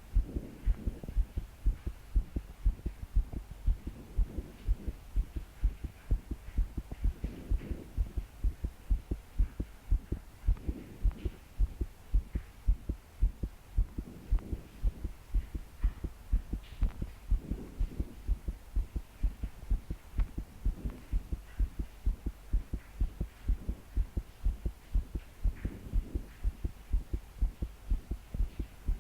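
A woman's heartbeat, pounding and fast in an even rhythm of strong low thumps: palpitations. Slow breaths swell and fade every three to four seconds.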